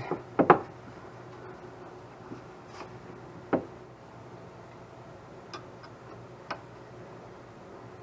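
A handful of separate sharp clicks and light knocks, several in quick succession at the start, then single ones every second or two, from metal sway bar link parts (washers, spacers, bushings) and tools being handled.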